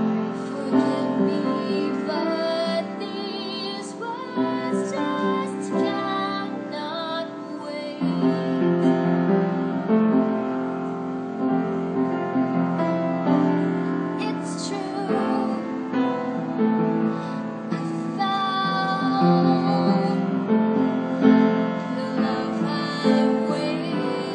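A girl singing a song, accompanied by piano, with some held notes wavering in vibrato.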